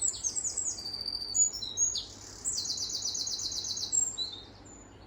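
Eurasian wren singing a high, rapid song of quick notes that runs into a fast, even trill about halfway through; the song stops shortly before the end.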